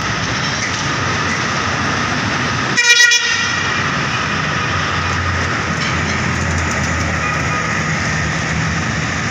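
Bus horn giving one short, loud toot about three seconds in, over steady traffic noise, with a heavy engine rumble swelling as a vehicle passes a couple of seconds later.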